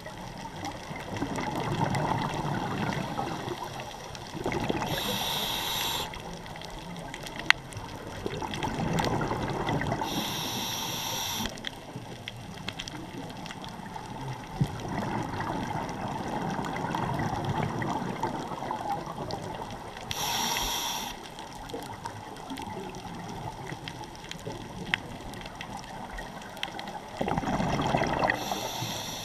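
Scuba diver breathing through a regulator underwater: four short hissing inhalations several seconds apart, each followed by a longer bubbling rumble of exhaled air.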